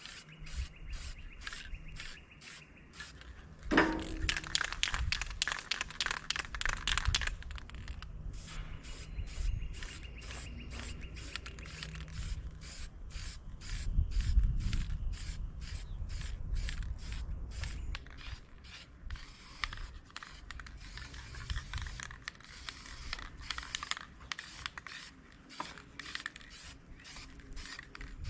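Hand strokes scrubbing or brushing over a metal part, about three a second. A steady hiss runs for about three seconds near the start, and wind rumbles on the microphone.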